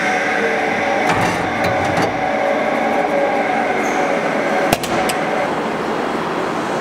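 Blast cabinet's dust-collector fan running with a steady rushing hum, with a few sharp metallic knocks as the cast-aluminum end bell is handled and lifted out of the cabinet, the loudest a little before the end.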